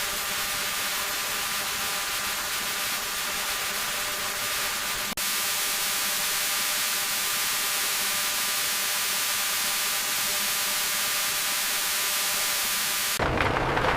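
Steady hiss with a faint steady hum of tones beneath it, cutting out for an instant about five seconds in; near the end it gives way to a louder, deeper rumbling noise.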